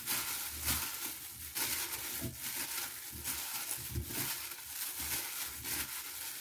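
Hand in a thin plastic glove tossing seasoned cucumber spears in a glass bowl: the glove crinkles and the wet cucumber pieces shift and knock against the glass in irregular strokes.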